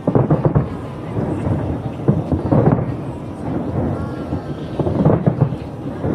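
Fireworks show: aerial shells bursting in three clusters of deep booms, about two to three seconds apart, with a rumbling wash of noise between them.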